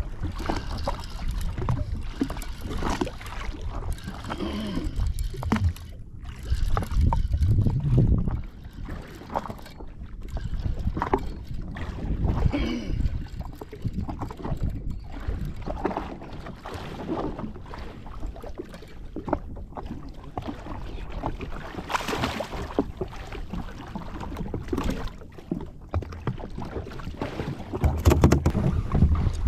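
Water slapping and lapping against the hull of a drifting jet ski, with gusts of wind buffeting the microphone.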